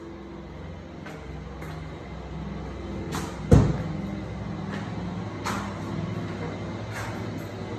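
Scattered light knocks, one loud low thump about three and a half seconds in, over a steady low hum.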